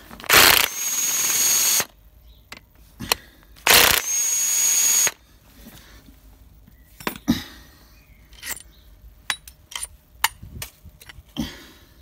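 A power tool runs in two bursts of about a second and a half each, with a steady high whine, undoing the two bolts of a connecting-rod cap. In the second half come a scatter of light metal clicks and clinks as the cap and big-end bearing shell are taken off.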